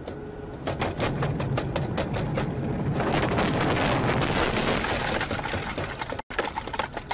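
Rapid irregular clatter, then a dense hiss, heard from inside a car on a wet road as water and slush spray from a truck passing close alongside strikes the windshield and body. The sound breaks off abruptly near the end.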